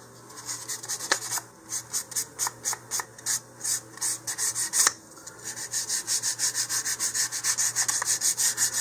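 Sandpaper rubbed back and forth over the edge of a thin balsa-wood fin, rounding over the leading edge. Short scraping strokes come about three a second at first and quicken to about five a second in the second half.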